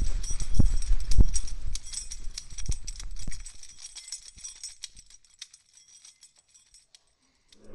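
Rapid clattering and rattling with heavy low thumps, thinning out and fading over about four seconds to near silence.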